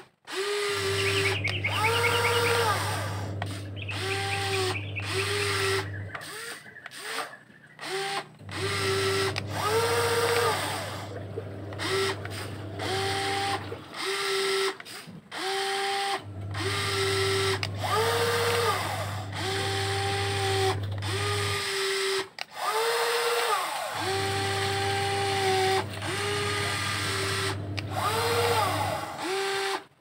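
Electric motors of a radio-controlled toy excavator whining in repeated short runs of a second or two, stepping up and down in pitch as the arm, bucket and tracks are driven.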